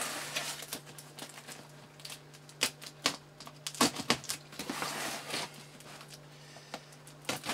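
Hands opening a taped cardboard shipping box: cardboard flaps and packing tape rustling and crackling, with scattered sharp clicks.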